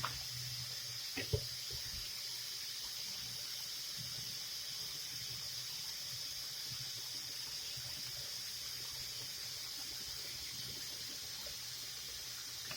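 Sink tap running, a steady hiss of water, left on while the water is still cold, waiting for the hot water to come through. A couple of light knocks about a second in.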